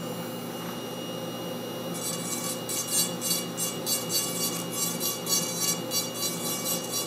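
Rotary carving handpiece running with a steady whine, its bur grinding into musk ox horn. From about two seconds in the grinding comes in short, regular strokes, about three a second.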